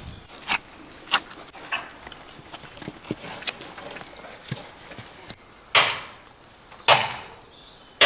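Sharp knocks and clicks of knife-and-carcass work on a wooden table as camel meat is cut from the carcass, with two louder knocks about a second apart near the end.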